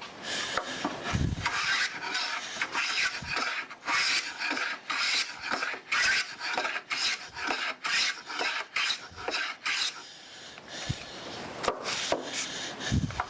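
A block of beeswax rubbed back and forth over the sole of a hand plane in quick, repeated scraping strokes, waxing the sole so the plane slides and cuts more easily. A low knock comes about a second in and another near the end.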